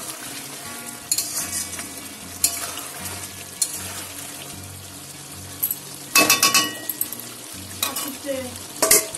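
Chicken and potato pieces in thick gravy sizzling in an aluminium kadai while a metal spatula stirs and scrapes through them. The spatula knocks and scrapes against the pan with a metallic ring, loudest in a cluster about six seconds in, with more knocks near the end.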